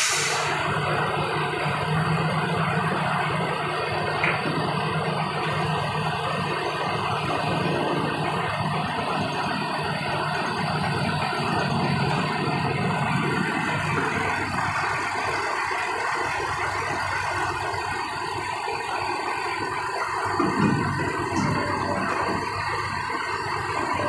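A heavy vehicle's engine running steadily, with a sharp click right at the start and a brief clunk about twenty seconds in.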